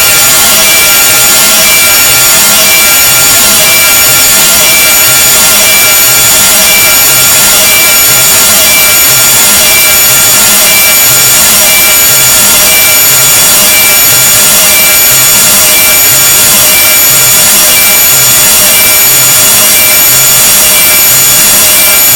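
Harsh, deliberately unpleasant noise sound effect, very loud and unbroken: a dense grating hiss with many shrill steady tones layered through it, over a low throb that pulses a little under once a second.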